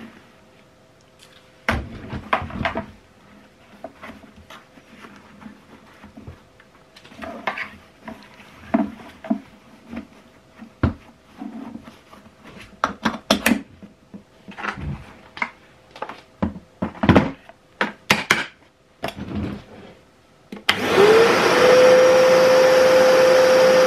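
Scattered plastic knocks and cloth rustling as a washable cloth dust bag is fitted inside a Kärcher WD3 wet-and-dry vacuum's container and the motor head is set back on. About 21 seconds in the vacuum is switched on: its motor whine rises briefly, then holds steady under a loud rush of suction.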